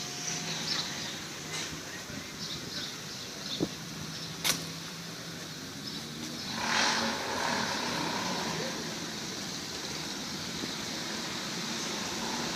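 Town street ambience: a car passes, swelling about seven seconds in, over the steady background noise of traffic. Two sharp clicks come a little before halfway, the second one the loudest sound.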